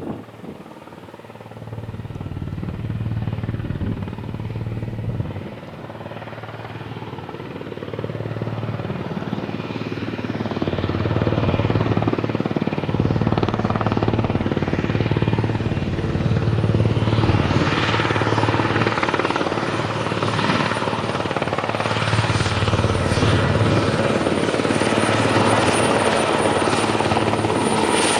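Eurocopter AS332L1 Super Puma helicopter's rotor and twin turbine engines, with a steady rotor beat. It grows steadily louder over the first dozen seconds, then the noise fills out and a thin high whine comes in over the second half.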